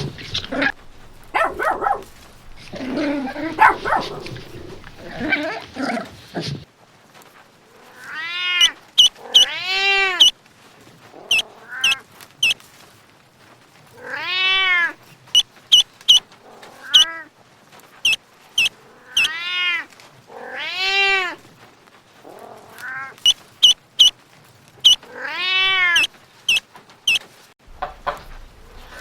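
A cat meowing again and again: long, drawn-out meows that rise and then fall in pitch, often in pairs, with short high chirps between them. The first six seconds hold a busier jumble of animal sounds before the meows begin.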